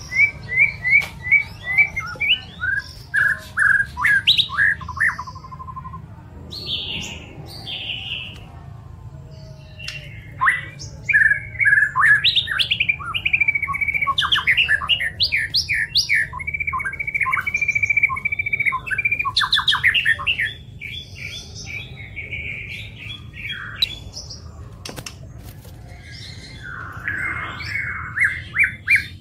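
White-rumped shama (murai batu) singing: fast runs of repeated chirps, varied whistled phrases and a held whistle, with a quieter stretch past the middle and a burst of song again near the end. A low steady hum sits underneath.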